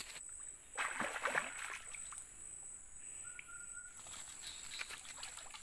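Quiet outdoor ambience by the water with a steady high-pitched whine, and a brief rustling burst about a second in.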